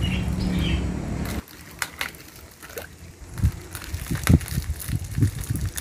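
A thin plastic bag filled with liquid crinkling, with soft knocks and clicks as it is handled and knotted shut. A steady low hum plays at first and cuts off suddenly about a second and a half in.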